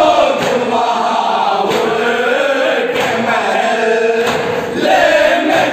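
A group of men chanting a noha, a Shia lament, in unison behind a lead voice. Sharp slaps of matam chest-beating keep time about every second and a half.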